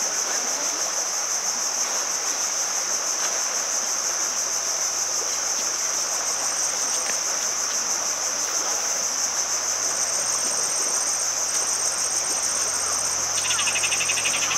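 Insects calling in a steady, high-pitched chorus, with a faster pulsing chirp joining in from about ten seconds in.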